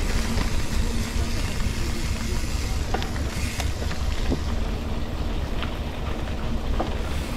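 Steady rumble of wind and road noise while travelling along a road, with a few faint clicks about three and four seconds in.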